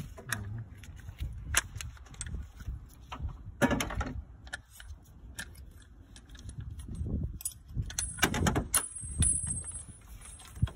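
Irregular metallic clicks, clinks and knocks of hand tools and engine parts as the water pump pulley is taken off, with a longer rattle about four seconds in and a clattering cluster with a high metallic ring near the end.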